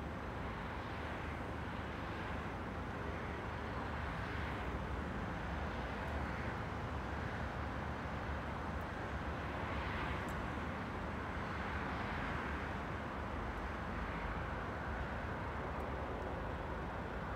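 Steady road traffic noise, swelling and fading gently as vehicles pass.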